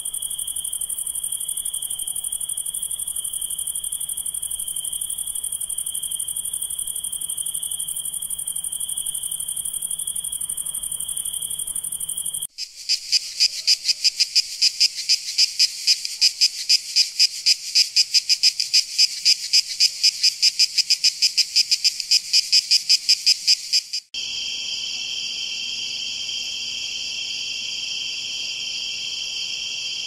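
Crickets chirping in a steady chorus. About twelve seconds in it switches abruptly to a louder, rapidly pulsing buzz of cicadas, and near the end to a steady mix of forest insects calling at several pitches.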